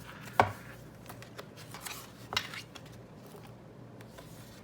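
A 6x6 paper pad being handled: a sharp tap about half a second in and a smaller one about two and a half seconds in, with light rustling and small taps between.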